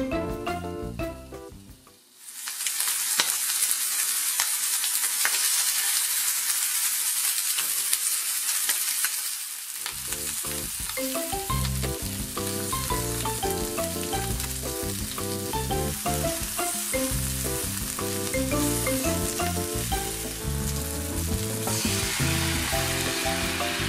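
Chicken drumsticks sizzling as they fry in a nonstick frying pan, a steady high hiss. Background music plays over it for the first couple of seconds and again from about ten seconds in. Near the end the sizzle flares up as a sauce is poured into the hot pan.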